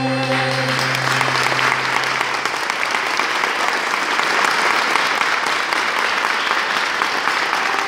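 Audience applauding, dense and steady, while the last chord of the music fades out over the first two seconds or so.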